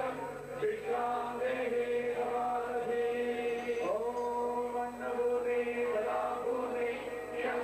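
Hindu devotional chanting: a voice holds long sung notes that step and slide between pitches, with no pause.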